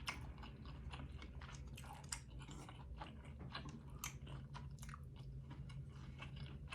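A person chewing chili oil noodles, with soft, irregular wet mouth clicks and smacks, several a second.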